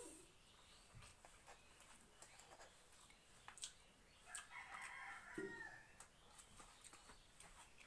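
A rooster crowing faintly once, about four seconds in, lasting a second and a half. Around it are faint clicks of rice being eaten by hand from a steel plate.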